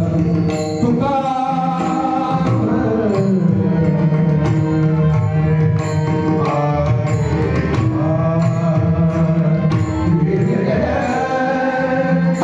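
Marathi devotional singing: a male voice holding long, slowly gliding melodic lines, accompanied by steady strokes on a mridang (pakhawaj) barrel drum.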